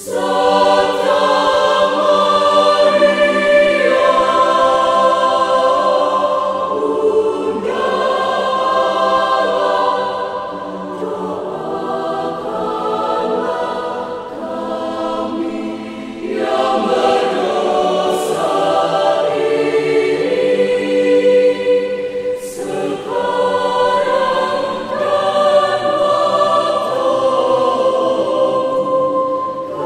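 Mixed choir singing in several-part harmony, in sustained phrases with short breaths between them.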